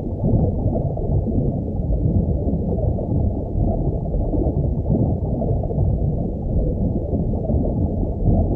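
Underwater ambience picked up by a submerged camera: a steady, muffled low rumble of water with no high sounds at all.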